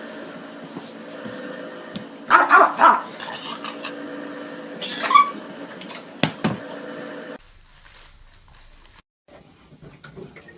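A dog barking and yipping in a few short bursts over a steady hum, the loudest about two seconds in and again about five seconds in. The sound drops abruptly to a much quieter background about seven seconds in.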